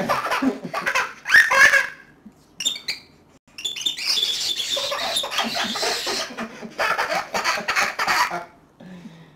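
A baby laughing and squealing with delight in bursts, the longest from about three and a half seconds in, mixed with chirps from a pet cockatiel.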